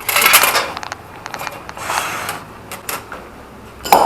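Metal parts and tools clanking and rattling as the clutch is taken off the flywheel: a rattle at the start and another about two seconds in, scattered sharp clicks, and a louder knock near the end.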